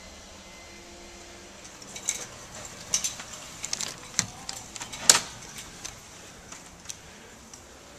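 A door being opened by its brass knob: a run of clicks and rattles from the knob and latch, the loudest about five seconds in.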